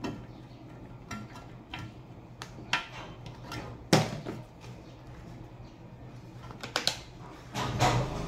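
Clicks and knocks of a metal electric-fan blade and wiring being handled, the loudest about four seconds in. Near the end the fan motor starts with a low hum.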